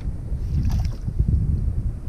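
Strong wind buffeting the microphone: a gusty low rumble that swells and falls.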